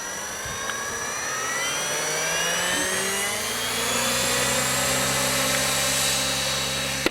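Align T-REX 600E Pro electric RC helicopter spooling up: a whine that climbs in pitch for the first few seconds, then holds steady with a steady low hum once the rotor is up to speed.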